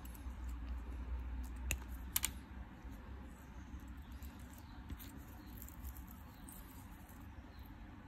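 Close-up handling noise of fingers working monofilament fishing line and small silicone float stoppers: soft rubbing and rustling, with a sharp click just under two seconds in and a quick double click just after, then lighter ticks.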